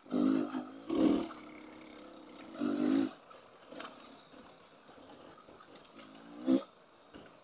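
Dirt bike engine revving in four short bursts of throttle, three in the first three seconds and a brief sharp one near the end, running quieter in between.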